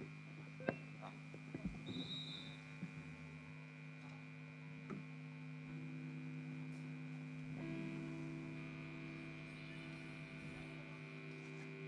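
Steady electrical hum from the stage PA and amplifiers, with a few faint knocks near the start; a second, higher hum joins about two-thirds of the way through.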